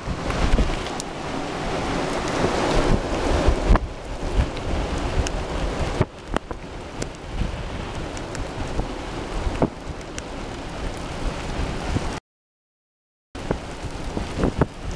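Strong straight-line storm winds gusting and buffeting the microphone, with rain spattering and ticking on the car. The gusts are heaviest in the first few seconds, and the sound cuts out completely for about a second near the end.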